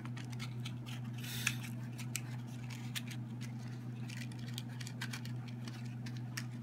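Small cardboard matchbox handled and its drawer slid open: soft scrapes and scattered light clicks, with a louder scrape about a second and a half in, over a steady low hum.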